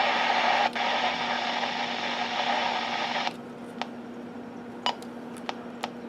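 Weather radio receiver hissing with static, with a brief dropout just under a second in; about three seconds in the hiss falls to a much fainter level, with a few faint clicks and a steady low hum underneath.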